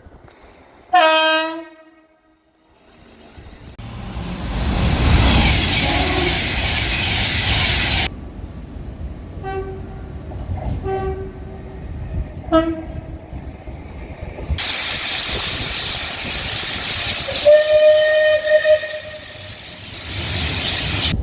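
A run of British trains sounding their horns, one clip after another with abrupt cuts. First a short horn blast, then the loud noise of a train passing, then three short horn toots, then another train running past with a longer horn note near the end.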